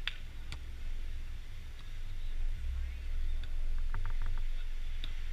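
Low steady rumble of wind on the microphone, with a few short sharp taps scattered through it.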